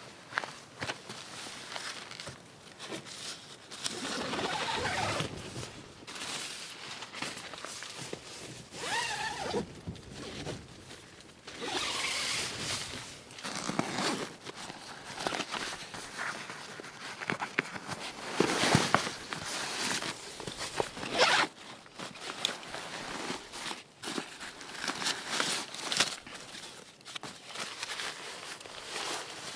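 Zippers on a nylon backpack being pulled open in several long swishes, with rustling fabric and scattered clicks and knocks as the pack is handled and opened.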